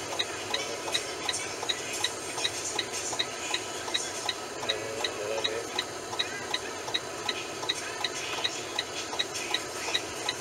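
Steady, even ticking, about three ticks a second, over a low background hum.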